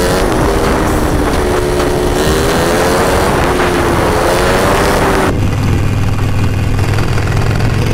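Harley-Davidson Sportster's V-twin engine running under way with heavy wind rush, its note dipping and then rising again. About five seconds in, the rush cuts off suddenly, leaving a steadier low engine drone.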